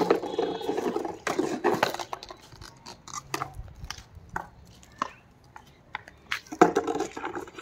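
German shepherd chewing and biting on a toy held in its mouth: a run of irregular sharp clicks.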